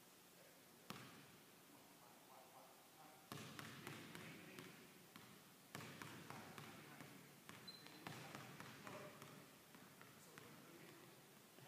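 Basketball dribbled hard and fast on a hardwood gym floor, each bounce echoing in the hall. A single bounce comes about a second in, then a quick run of low, rapid dribbles from about three seconds on.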